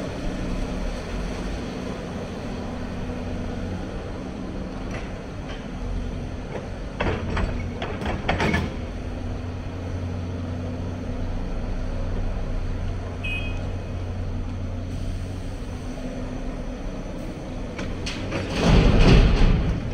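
Hyundai crawler excavator's diesel engine running steadily under hydraulic load while the bucket digs, with clanks and scrapes of the bucket in rubble about seven to eight seconds in. Near the end, the loudest sound: a load of soil and stones dropping from the bucket into the steel bed of a dump truck.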